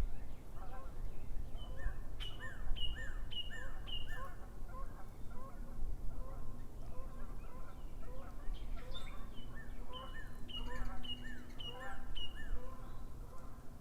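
Wild birds singing: one bird gives two runs of clear, repeated down-slurred notes, about two a second, while other birds call more faintly in lower, shorter notes, over a steady low rumble.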